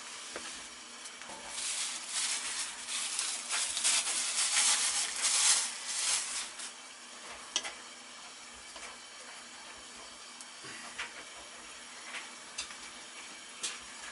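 Handling noise from gloved hands working on a gas furnace's exhaust fan motor and wiring. A rustling, crinkly noise lasts about five seconds and rises and falls, then come a few scattered light clicks.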